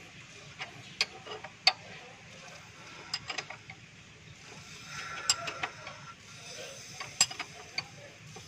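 Irregular sharp metallic clicks and clinks of hand tools working on a Mitsubishi 4G13 engine's exposed rocker-arm valvetrain during valve clearance adjustment, with the engine turned over by hand at the crank pulley.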